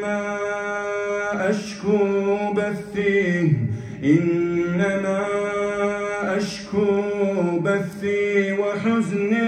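A man reciting the Quran in a slow, melodic chant, holding long drawn-out notes with ornamented turns in pitch, broken by a few short pauses between phrases.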